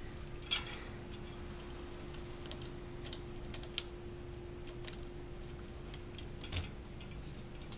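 Scattered light clicks and ticks of small metal parts and tools being handled while fitting a bicycle rear derailleur, with a slightly louder knock near the end, over a faint steady hum.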